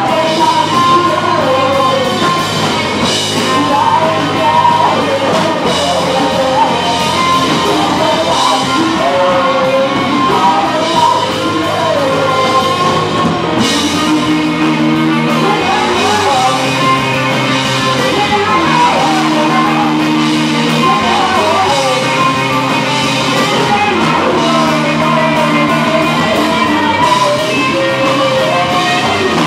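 Rock band playing live: electric guitar, bass guitar and drum kit with cymbal crashes, under a sung vocal. From about halfway through, held chords repeat in a steady pattern.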